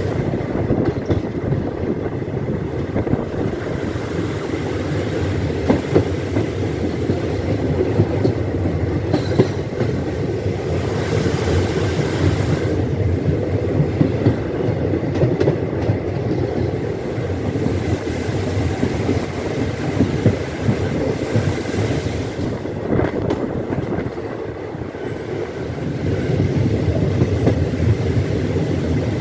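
Broad-gauge express train running at speed, heard from on board: a steady rumble of wheels on the track with occasional clacks over rail joints.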